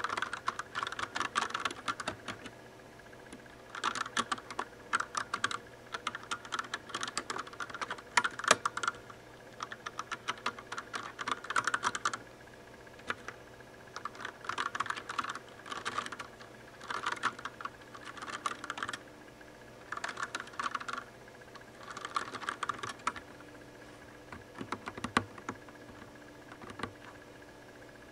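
Typing on a Das Keyboard mechanical keyboard with Cherry MX Brown switches: rapid clacking keystrokes in bursts of a second or two, separated by short pauses.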